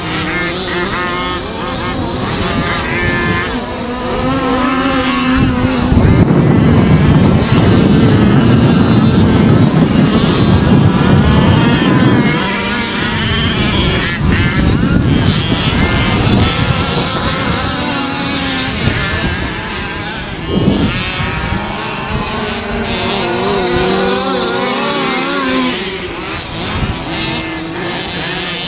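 Several 1/5-scale petrol RC cars (HPI Baja, Losi 5ive type) with small two-stroke engines buzzing and revving up and down as they race, their pitches overlapping. A louder stretch with a heavy low rumble runs from about six to twelve seconds in.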